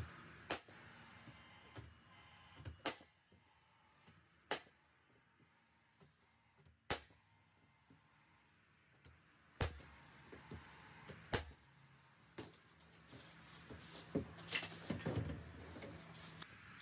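Cordless nail gun firing nails through a sheet of flooring board into timber framing: about seven sharp single shots a couple of seconds apart. Near the end the shots give way to a run of knocking and rattling as tools are handled on the board.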